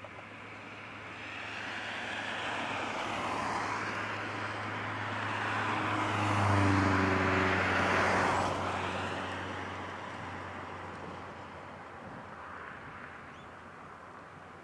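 A vehicle passing by: its engine noise swells over several seconds, is loudest about seven seconds in, then fades away.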